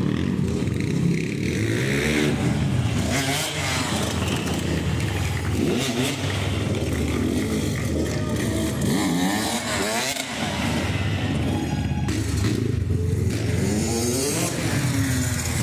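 Dirt bike engines revving up and down again and again as the bikes are ridden, with the pitch repeatedly rising and falling.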